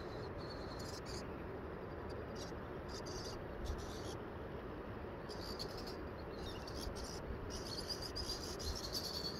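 Outdoor ambience: a steady background hiss with high-pitched chirping that comes and goes, more continuous near the end.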